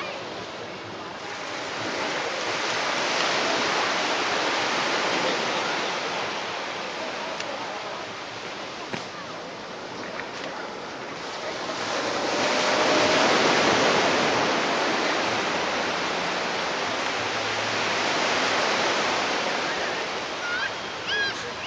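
Sea waves washing on the shore, an even rushing that swells and fades in slow surges, loudest a little past halfway through.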